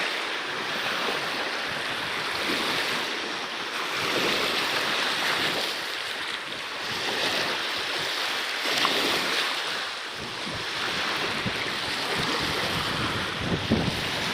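Water rushing and splashing around a sailing kayak, with wind buffeting the microphone and gusting harder near the end.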